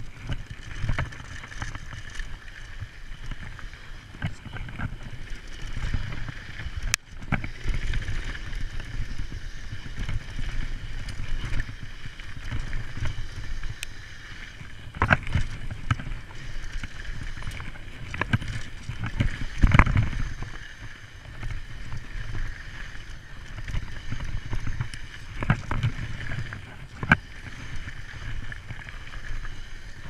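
Downhill mountain bike ridden fast down a dirt trail: a steady rumble and rattle of tyres, suspension and frame over the rough ground, with sharper knocks as it hits bumps, the hardest about twenty seconds in.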